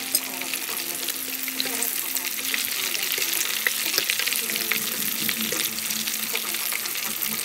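Bread-crumb-coated shrimp deep-frying in hot oil: a steady, dense sizzle and crackle of bubbling oil.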